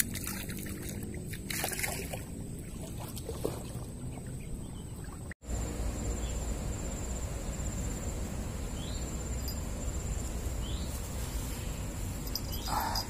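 Steady outdoor background noise with a low rumble and a thin, constant high-pitched whine. It drops out for an instant about five seconds in, then comes back slightly louder and lower. A few faint short chirps come near the middle.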